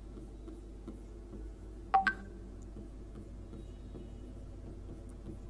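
Pen tapping and writing on a digital writing board, with two sharp clicks close together about two seconds in that ring briefly, over a faint low hum.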